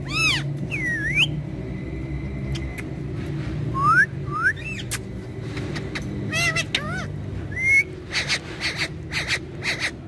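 Indian ringneck parakeets whistling and chirping in short calls, including two quick rising whistles near the middle and a few arched chirps, with a run of sharp clicks in the second half.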